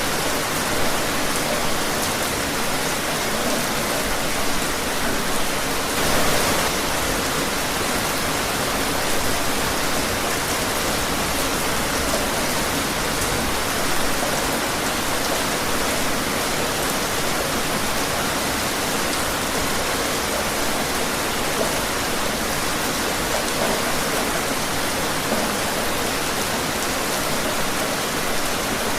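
Steady rain falling, a dense even hiss of drops with scattered individual drips and small swells in intensity, such as about six seconds in.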